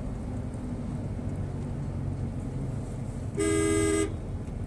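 A car horn sounds once, a two-note blast of about half a second near the end, over the steady low hum of a car's engine and tyres heard from inside the cabin.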